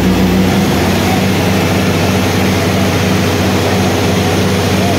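Diesel tractor engine running steadily with a low, even drone. A little under a second in, its deepest rumble drops away.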